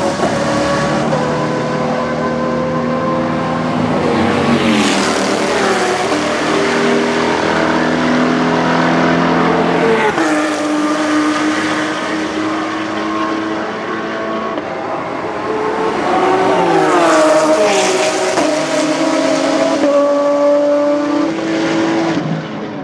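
Race car engines running hard, loud and continuous, their pitch climbing and then dropping sharply at each gear change, several times over.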